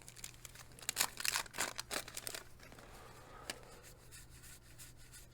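Crinkly wrapper of a 1987 Donruss wax pack being torn open and rustled. A burst of tearing and crinkling comes about a second in and lasts a second or so, followed by lighter handling rustle and a click.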